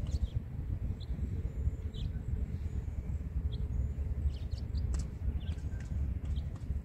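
Wind buffeting the microphone with a low, uneven rumble, while small birds give short, scattered chirps.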